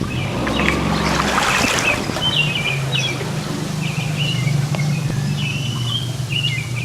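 A small boat's engine running steadily at a low hum, with birds chirping over it again and again. A brief rush of splashing or handling noise in the first two seconds.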